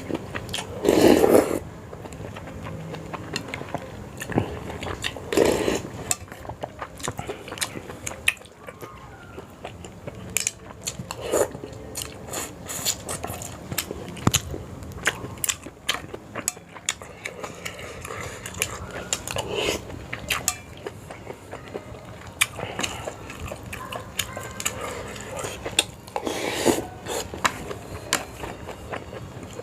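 Close-up eating sounds of a person eating a bowl of Sarawak laksa noodles: biting and chewing, with utensils clicking against the bowl. A few louder noisy bursts come at intervals.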